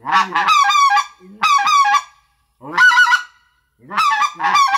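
RedBone 'Coyote' Delrin short-reed goose call blown by hand, run in four quick bursts of honks, each note breaking from a low tone up to a high one.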